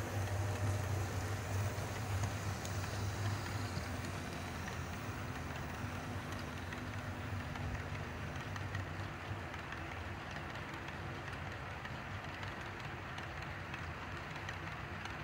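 HO scale model diesel locomotives, Athearn-type drives, humming as they run close by. Then a faint rolling rattle of the loaded ore cars' wheels on the track. The hum fades over the first few seconds as the locomotives draw away.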